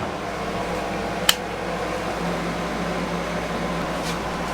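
Steady fan hum of a boat cabin's air conditioning and ventilation running, with one sharp click about a second in.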